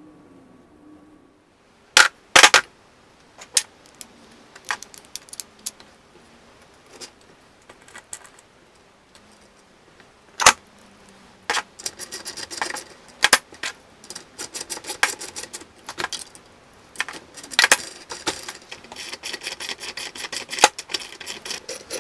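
Small metal skateboard hardware clinking and clicking as wheels are fitted onto the trucks' axles: bearings, washers and axle nuts. Scattered sharp clicks at first, then from about halfway a dense run of rapid clicking.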